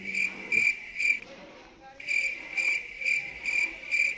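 Cricket chirping, a high repeated chirp about three times a second, with a short pause a little after a second in.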